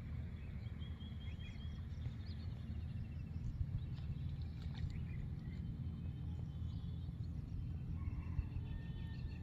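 Outdoor ambience: a steady low rumble with small birds chirping and trilling now and then.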